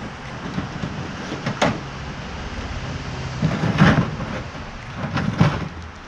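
Wire-mesh cage rattling and scraping against a wooden hive box as it is handled, with three louder scrapes about one and a half, four and five and a half seconds in.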